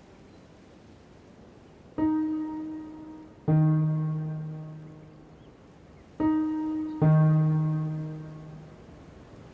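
Piano playing a descending octave twice: a struck note, then a note an octave lower, each ringing and fading. The first pair begins about two seconds in with the notes about a second and a half apart. The second pair follows near the end with the notes closer together.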